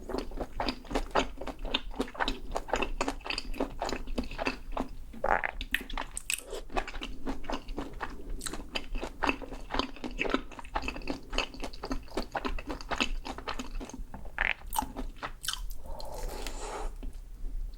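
Close-miked chewing with rapid crisp crunches: a person biting and chewing through the fried batter crust of a Korean corn dog.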